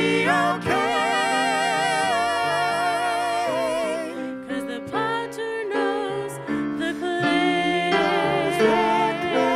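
Gospel vocal trio, two women and a man, singing in harmony through microphones with piano accompaniment. The voices hold long notes with strong vibrato, easing off briefly about four seconds in.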